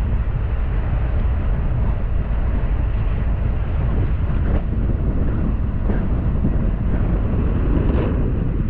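Fiat Panda 4x4 driving slowly over a rough grass field track, heard from a roof-mounted camera: a steady low rumble of wind buffeting the microphone mixed with engine and tyre noise, with a few faint knocks from the bumps.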